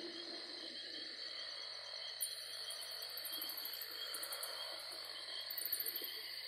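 Insects chirping in a steady, pulsing chorus, with bursts of a higher, faster trill about two seconds in and again near the end.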